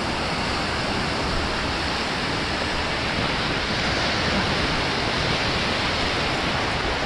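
Ocean surf washing over a shallow sandy shoreline: a steady rush of foaming water.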